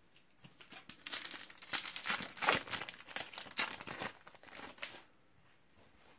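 Wrapper of a Panini FIFA World Cup 2018 trading-card packet being torn open and crinkled by hand, a run of crackling that stops about five seconds in as the cards come out.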